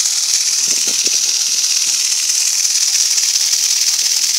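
A small motor spinning the LED arm of a persistence-of-vision display, giving a steady high hiss of the rotor cutting the air.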